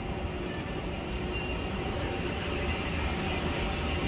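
Steady low mechanical rumble and hum of a running escalator, getting slightly louder as it is stepped onto and ridden down.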